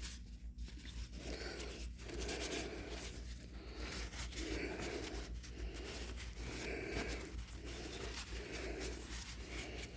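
Rhythmic back-and-forth rubbing strokes on the wooden handle of a bench plane, about one stroke a second, as it is worked by hand with abrasive or cloth.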